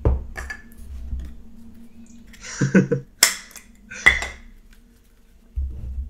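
Hard plastic lens and mount caps set down on a wooden table: a few clattering knocks, then sharp clacks about three and four seconds in. Near the end comes low handling rumble as the lens is brought to the camera.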